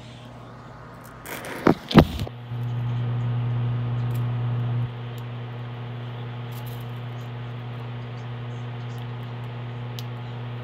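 Phone handling noise: rustling and two sharp knocks about two seconds in, over a steady low hum that is louder for a couple of seconds after the knocks and then settles.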